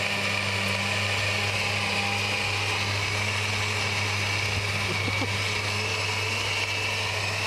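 Electric countertop blender running steadily at full speed, churning a thick load of ice cream and milk into a smoothie.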